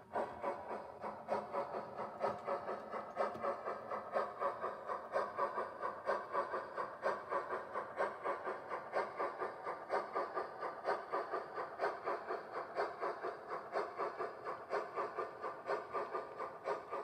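Sound-fitted model steam locomotive giving a steady exhaust chuff with a light steam hiss, about three beats a second.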